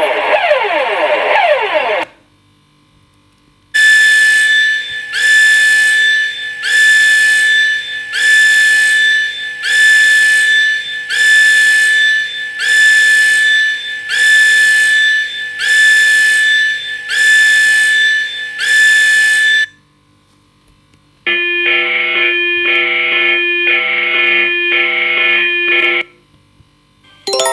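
A series of electronic emergency alarm signals. A sweeping siren of a seismic alert ends about two seconds in. After a short gap, a harsh high beep repeats about every second and a half for some sixteen seconds. After another gap, a different pulsing alarm of several stacked tones runs for about five seconds, and a chime begins at the very end.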